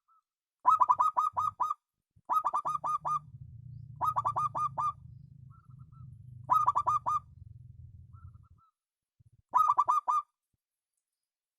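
Zebra dove (perkutut) cooing: five phrases of quick repeated notes, each about a second long, separated by short pauses. A fainter call answers softly between phrases.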